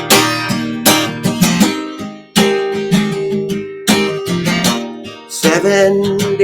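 Guitar strummed in full chords, a new strum about every second or so, each left to ring and fade before the next.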